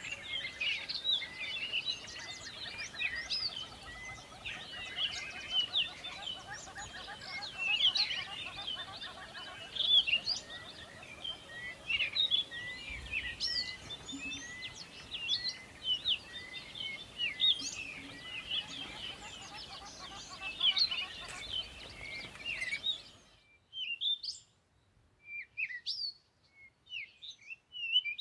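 A chorus of birds chirping and calling, with many short, quick notes overlapping. A steady background hiss under them cuts off suddenly near the end, leaving the chirps on their own.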